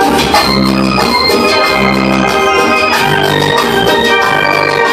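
Loud dance music played over a party sound system, led by an organ-like electronic keyboard, over a bass line that pulses in a steady, repeating rhythm.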